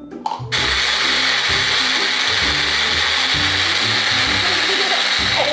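Electric blender running steadily for about five seconds, puréeing fruit for homemade popsicles; it starts about half a second in and stops abruptly near the end.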